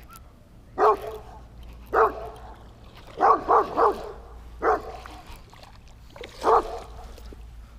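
Dogs barking repeatedly: about seven separate barks, with a quick run of three about halfway through.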